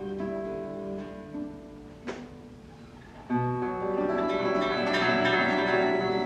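A classical guitar and violin duo playing a chamber piece: held notes ring and fade, a single sharp tap comes about two seconds in, then a loud guitar chord about three seconds in opens a busy passage of rapidly plucked notes.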